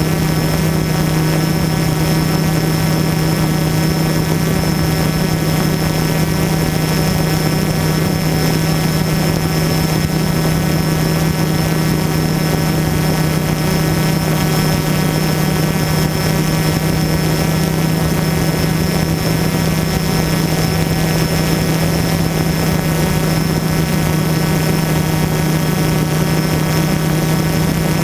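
DJI Phantom quadcopter hovering, its motors and propellers making a steady, unchanging hum with a hiss over it, heard from a camera mounted on the drone itself.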